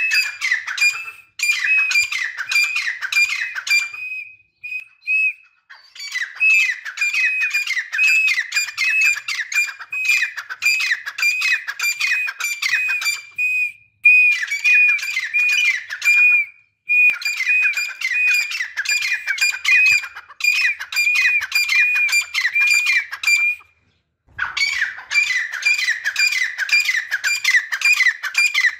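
Grey francolins calling: long bouts of loud, rapidly repeated ringing notes, a few a second, broken by short pauses.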